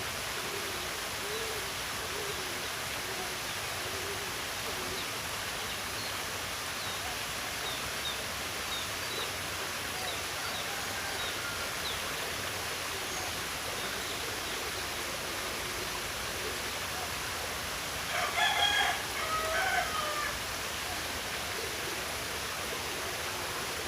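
Steady rush of flowing water with faint, scattered high bird chirps. About three-quarters of the way through, a loud two-part bird call lasting about two seconds rises above the water.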